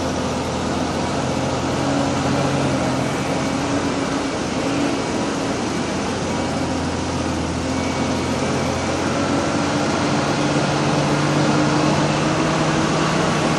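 Vehicle engine running steadily under load as it climbs a rough dirt track, with steady road noise from the tyres.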